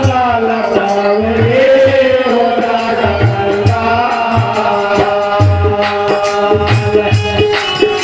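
Live Hindi devotional bhajan: a hand drum keeps a steady beat under held drone tones, with shaken rattle-like percussion. A man's voice slides up into a long held note about a second in.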